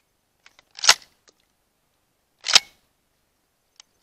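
Two gunshots about a second and a half apart, with a few faint clicks before and after them.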